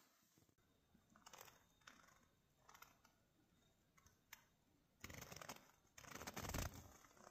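Tent fabric flapping in the wind: a few faint scrapes at first, then louder, rougher flapping from about five seconds in.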